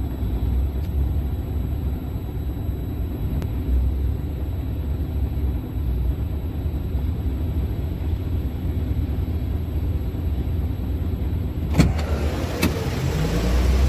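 Caterpillar 950E wheel loader's diesel engine working, a steady low rumble. A sharp knock comes near the end, followed by a briefly rising engine note.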